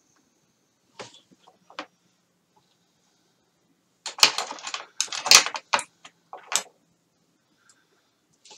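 Objects being handled and set down on a workbench: two light clicks about a second in, then a burst of sharp clattering knocks and rattles about four seconds in that lasts a couple of seconds.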